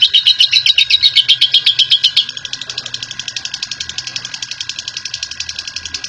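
Lovebird ngekek: a long, rapid chattering trill of sharp high chirps, about nine a second. About two seconds in, the trill drops quieter and the chirps come slightly faster.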